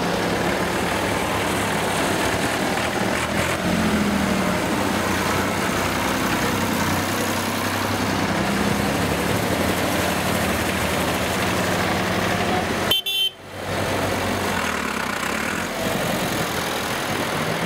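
Tractor engine running steadily under way, heard from inside the cab, with road and cab rattle noise. The sound drops out briefly about thirteen seconds in.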